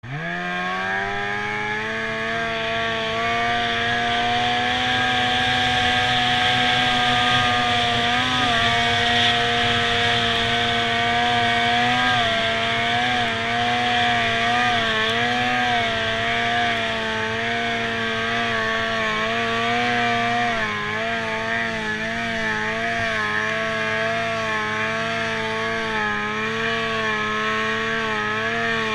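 Snowmobile's two-stroke engine at high revs under load, climbing a steep snow slope. It revs up sharply at the start, then holds high with its pitch wavering as the throttle is worked, dipping briefly about 8, 12 and 20 seconds in.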